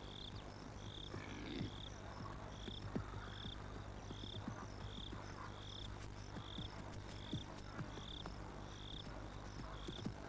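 Nature ambience: a short high chirp repeats evenly, about three every two seconds, with faint scattered clicks.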